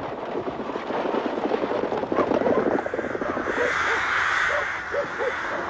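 A rookery: many rooks cawing at once in a dense, harsh chorus, with a few single caws standing out near the end.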